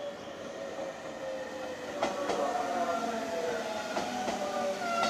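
JR Shikoku 7200 series electric train running along the station platform, its motors giving a whine that slowly falls in pitch. From about two seconds in, its wheels clack over the rail joints in pairs.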